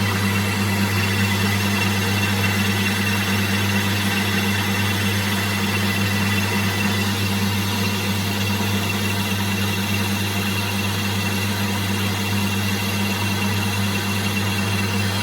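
Metal lathe running steadily at about 300 RPM with a constant motor hum, taking a slow cut across a cast iron plate with a carbide tool.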